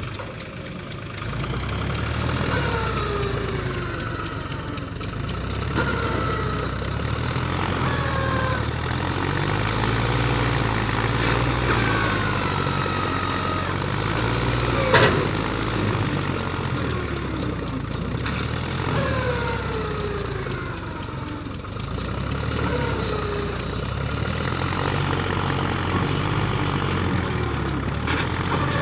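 Mahindra 265 tractor's three-cylinder diesel engine running under load as it tries to pull a trolley with a full water tank out of mud, the tractor's wheels bogged down. A falling whistle-like tone recurs every second or two over the engine, and a single sharp knock comes about halfway through.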